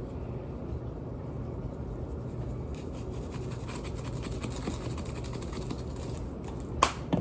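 Steady low hum, with faint rapid ticking from about three seconds in as garlic salt is shaken from a spice shaker. A single sharp click comes near the end.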